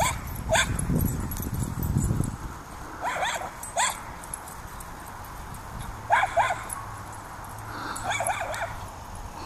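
Dogs giving short, high-pitched yips and barks in small bursts several times while chasing each other in play.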